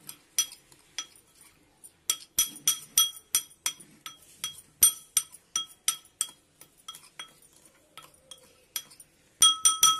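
Steel spoon clinking against a glass bowl as it stirs a dry spice mix: irregular ringing taps, a few per second, with a quick flurry near the end.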